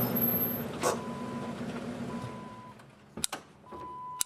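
A car running and pulling away, its noise fading over the first few seconds. A car's warning chime beeps in repeated half-second tones, with a sharp click about a second in and two more near the end.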